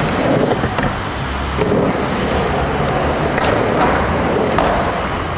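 Skateboard rolling on concrete with several sharp clacks and knocks of the board as a skater does a trick on a wooden box, over a steady low rumble.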